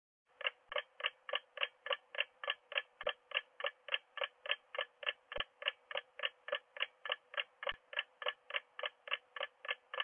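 Clock-style ticking sound effect of a quiz countdown timer: short, evenly spaced ticks at about three and a half a second, starting about half a second in.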